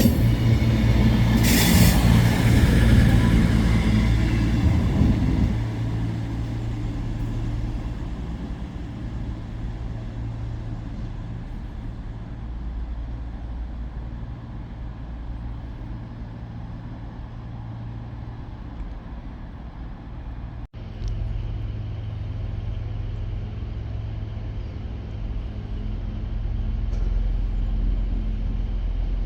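A train at a station platform running with a steady low engine hum, louder and rougher for the first few seconds, then settling; the sound drops out abruptly for a split second about two-thirds of the way through.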